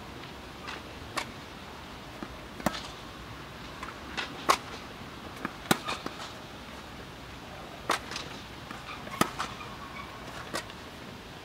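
Tennis rally: sharp racket strikes on the ball and ball bounces about every second or so, some loud and some fainter, over a steady low hiss.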